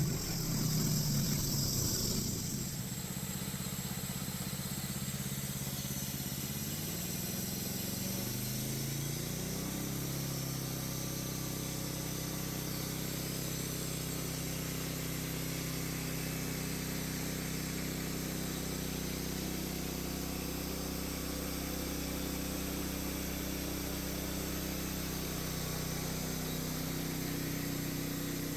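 The engine of a homemade sawmill running. A louder rush of hissing noise comes in the first couple of seconds, then the engine's pitch rises between about six and ten seconds in and holds steady after that.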